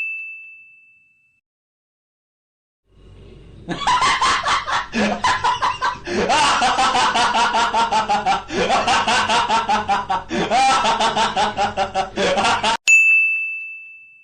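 A bell ding fading out over about a second. After a short pause comes about ten seconds of hard, loud laughter in rapid 'ha-ha' pulses with a few brief breaks. It is cut off suddenly by another bell ding near the end.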